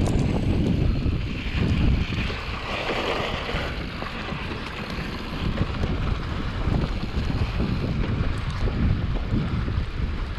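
Wind buffeting the microphone of a chest-mounted action camera while a Mondraker Level R e-mountain bike rolls fast down a dirt trail, with a steady low rumble from the tyres and irregular knocks and rattles as the bike goes over bumps.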